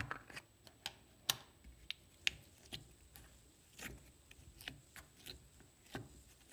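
Fingers poking and pushing Noise Putty in its plastic tub: a string of short sticky pops and clicks, about two a second, the loudest one right at the start.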